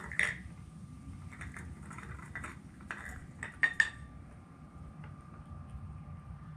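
Light clicks and knocks, a quick run of them in the first four seconds with two louder ones near the end of the run, as a squirrel roots about in a small feeder box on a stone table top.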